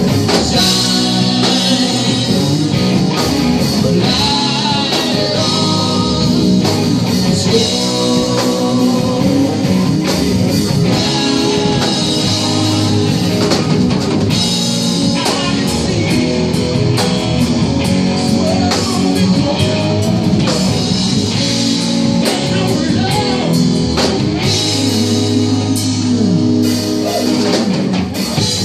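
Live rock band playing an amplified song: electric guitars over a drum kit keeping a steady beat.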